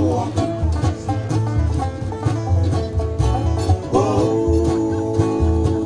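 Bluegrass band playing live: banjo and acoustic guitars picking over an upright bass keeping a steady low beat.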